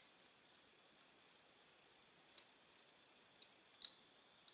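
Near silence broken by a few faint, sharp clicks of small steel lockwork parts being fitted into a Smith & Wesson .38 Special revolver frame: one a little past two seconds in and two close together near the end.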